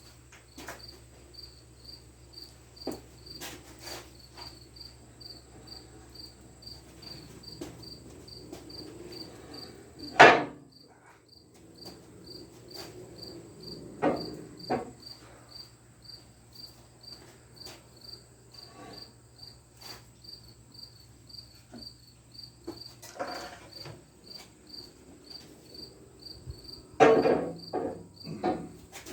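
A cricket chirping steadily, about three chirps a second, under a low hum that stops about three-quarters of the way through. A few sharp knocks and clunks break in, the loudest about ten seconds in and a quick cluster near the end.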